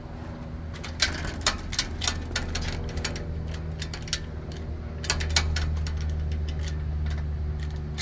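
Sharp metallic clicks and rattles from a metal fence gate's latch and lock being worked, coming in a cluster early on, again about five seconds in and near the end, over a steady low hum.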